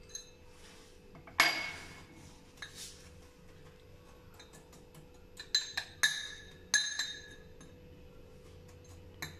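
Glass dessert bowls being knocked and tapped, probably with a spoon: several sharp clinks with a short glassy ring. The loudest comes about a second and a half in, a cluster follows between five and seven seconds, and one more comes near the end.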